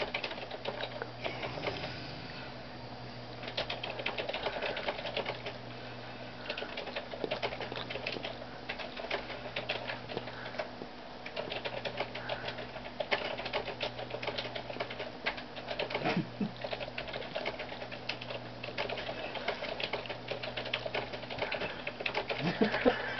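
A large dog licking and mouthing a small kitten: quick, irregular runs of wet clicking and smacking that go on in bursts.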